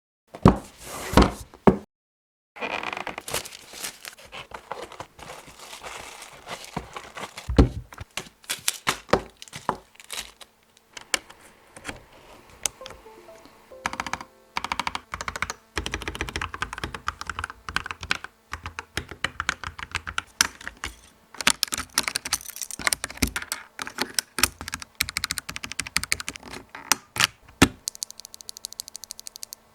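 Gi80 mechanical keyboard with Gateron Silver Pro linear switches on a steel plate, typed on in fast irregular runs of sharp key clacks, with a short silent gap about two seconds in.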